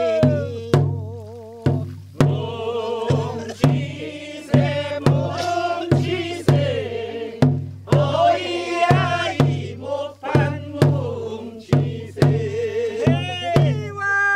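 Korean pungmul farmers' band playing: small kkwaenggwari gongs and a large jing gong clanging, with hourglass and barrel drums beating a steady beat of strikes about every half second. Several voices sing along with a wavering, vibrato-laden tune over the percussion.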